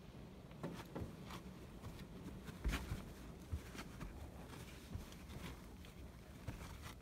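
Faint, scattered clicks and taps inside a quiet car cabin over a low rumble, the loudest a little under three seconds in.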